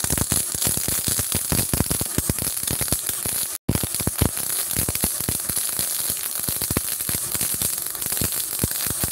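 Gasless MIG welding arc from a MultiPro MIG-MMA/TIG 160 AS-MZ inverter welder, a steady dense crackle of spatter as the wire feeds into the plate. The arc breaks for a split second about three and a half seconds in, then resumes until it stops at the end.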